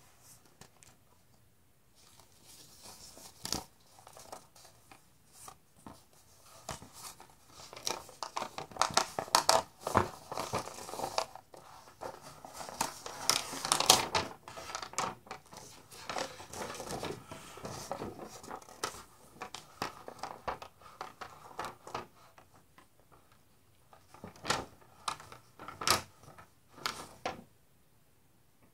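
Paper instruction sheet crinkling and rustling as it is unfolded and handled, loudest around the middle. Lighter scrapes and taps of the cardboard box and sleeve come before and after.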